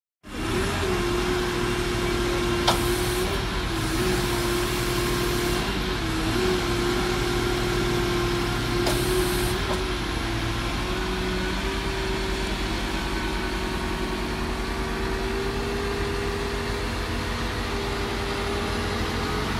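Diesel engine of a MAGNI HTH 16.10 telehandler running steadily under hydraulic load as the boom lifts the forks, with a strong steady whine that wavers in the first few seconds and then climbs slowly. A sharp click about three seconds in and two short spells of hiss in the first ten seconds.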